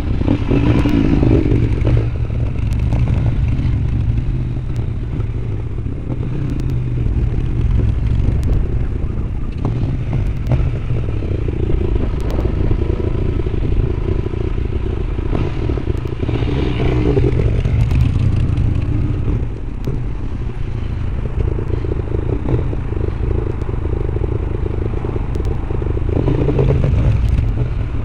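Motorcycle riding heard through a helmet-mounted camcorder's microphone: the engines of a Honda Shadow Aero 1100 V-twin and a Suzuki DR-Z 400SM riding just ahead, under wind noise and rattle on the mic. The engine sound swells and eases several times.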